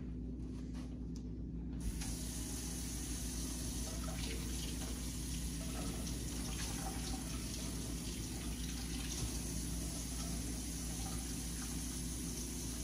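Water tap turned on about two seconds in, then running steadily into a stainless-steel sink while hands are washed under it.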